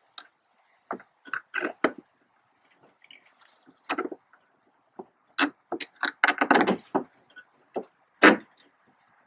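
Scattered sharp clicks and knocks of screws and hardware being handled and started by hand into the plastic kayak hull and mounting box. There is a quick flurry of clicks past the middle and one louder knock near the end.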